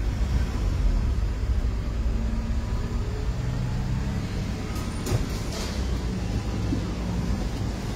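Car engine running with a steady low rumble, heard from inside the cabin, with a few light clicks about five seconds in.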